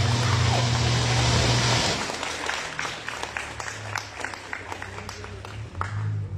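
Applause: dense clapping with a low steady hum under it for about two seconds, then thinning to scattered separate claps from a few people close by.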